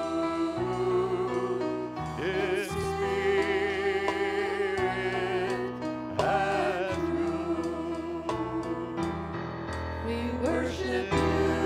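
Liturgical worship song: singing with a wide vibrato over keyboard accompaniment whose held chords and bass change every couple of seconds.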